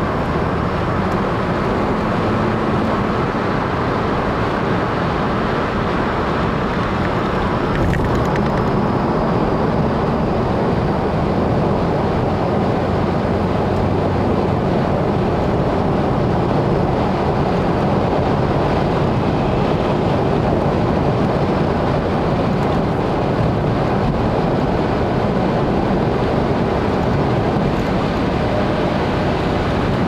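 Steady road noise of a car cruising on an expressway: tyre roar and engine drone heard from inside the car, unchanging throughout.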